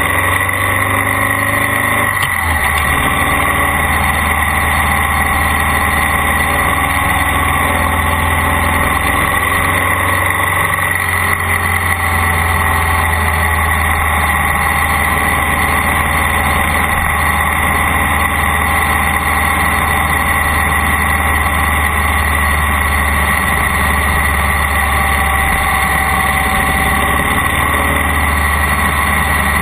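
Vehicle engine running steadily, a loud unbroken drone with a constant low hum.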